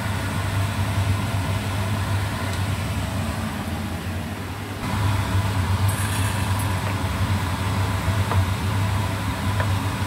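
An induction cooktop running with a steady low hum and fan whir while pork rib broth boils in a wok. The sound gets louder about five seconds in.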